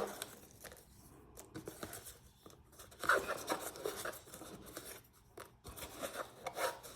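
Small pre-cut paper squares being shuffled and picked through on a work surface: light, scattered rustling and tapping, busiest a few seconds in.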